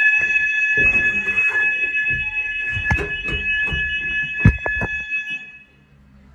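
Fire alarm sounder giving a steady high-pitched tone during a fire alarm test, then cutting off about five and a half seconds in. Knocks and thumps sound through it, the sharpest one near the end of the alarm.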